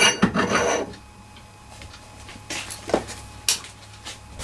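A short rustling scrape, then a few sharp clicks and knocks from handling the wood lathe's parts, over a faint steady hum.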